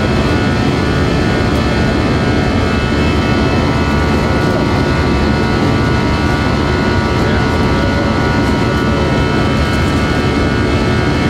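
A jet airliner's engines running steadily, heard from inside the passenger cabin: a constant rush of noise with several steady whining tones over it.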